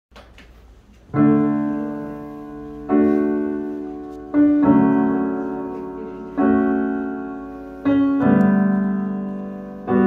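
Kurzweil digital stage piano playing a slow intro of sustained chords, one struck about every one and a half seconds, each left to ring and fade. The playing begins about a second in.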